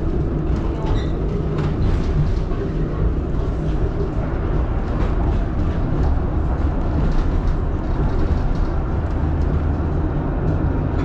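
Tram running along its rails, heard from inside the car: a steady low rumble of wheels and running gear.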